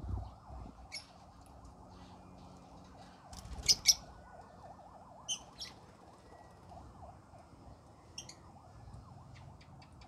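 Caged lovebirds giving short, sharp chirps at scattered moments, the loudest a quick pair about four seconds in, over a faint steady hiss.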